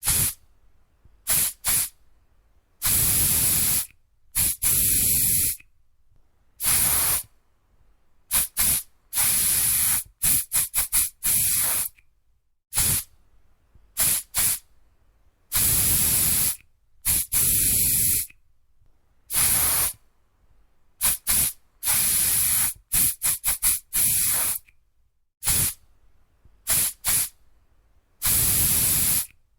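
Aerosol spray can spraying in a series of separate hissing bursts with short silences between them. Some sprays are held for about a second, and others come as quick runs of short puffs.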